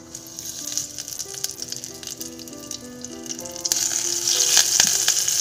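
Fresh curry leaves sizzling and crackling in hot oil with mustard seeds in a steel pot, a tempering (tadka). The sizzle grows much louder about three and a half seconds in.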